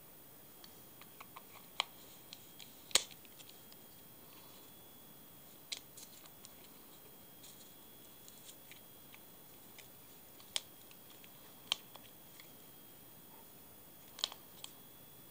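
Metal parts of a Garcia Mitchell 710 automatic clockwork fly reel clicking as the spool is handled and fitted back into the frame. A handful of sharp clicks come at uneven intervals, the loudest about three seconds in, over a faint hiss.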